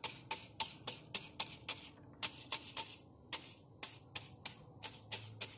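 Quick, crisp taps against fresh cement render, about four a second with two short pauses, as the wet surface is beaten to give it a stone texture. A steady high insect drone runs underneath.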